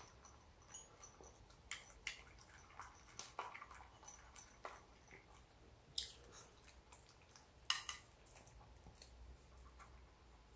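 Shih Tzu eating dry kibble from a ceramic bowl: faint, scattered crunches of chewing and clicks of kibble against the bowl, a couple of them sharper a little past the middle.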